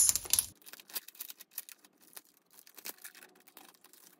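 Paper notebooks being handled and slid across a table: a brief rustle at the start, then faint scattered taps and rustles of paper.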